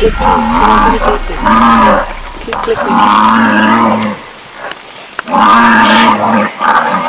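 Buffalo bellowing in four long, held calls as a tiger kills one of the herd.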